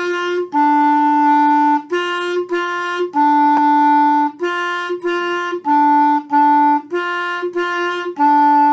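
Clarinet playing a short two-note melody, stepping back and forth between a higher note and a lower one (sol and mi) in a run of about a dozen notes, some short and some held longer.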